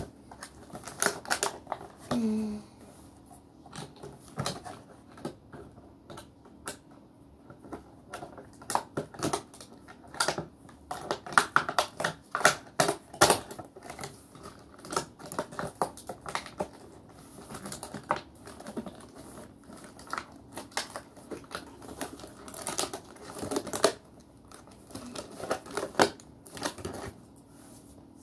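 Irregular clicks, taps and light rustles of hands handling a cardboard toy box and its packaging, coming in clusters with short pauses between.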